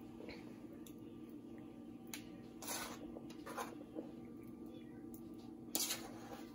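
Shredded mozzarella being scattered by hand over the lasagna: a few short, soft rustles, the loudest near the end, over a steady low hum.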